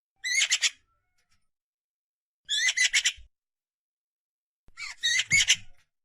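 Eurasian magpie nestling calling: three separate bursts of rapid, high-pitched squawky calls, each lasting under a second, with pauses of about two seconds between them.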